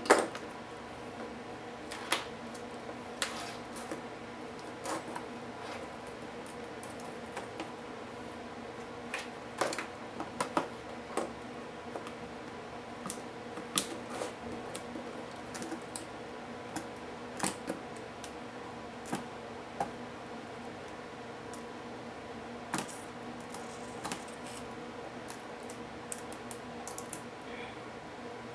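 Irregular light clicks and taps of small tools and plastic laptop parts being handled during disassembly, over a steady background hum.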